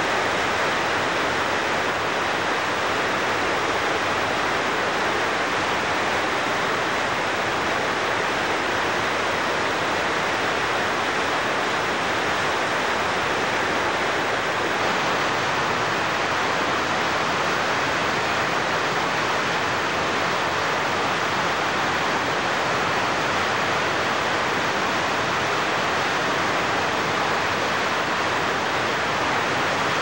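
River rapids: high water rushing and churning over rocks, a steady, even rush of whitewater.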